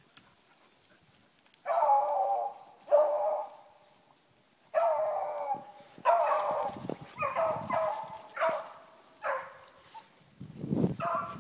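A pack of beagles giving tongue on a hare's line: a few long baying calls, then a quicker run of shorter ones. Near the end, footsteps rustle and crunch through forest undergrowth.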